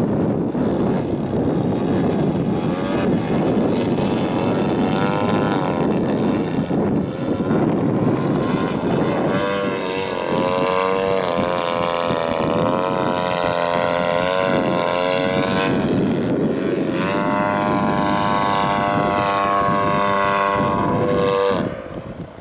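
Engine and propeller of a 1/3-scale Piper Super Cub RC plane in flight. For the first half the engine is mostly covered by wind noise; then its note rises and falls in pitch as the plane throttles and passes, and it drops away sharply near the end.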